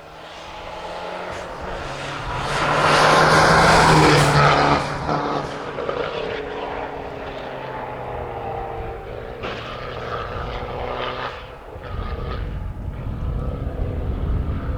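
Abarth Punto Evo rally car driven flat out, coming in and passing close at high revs, loudest about three to four seconds in. Its engine note then rises and falls through gear changes as it runs on, swelling again near the end before cutting off.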